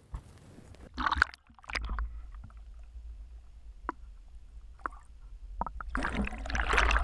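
Largemouth bass released into the water with a splash about a second in, then heard through an underwater camera: a low steady rumble with faint bubbling and clicks. Near the end there is a louder burst of splashing as the fish churns at the surface.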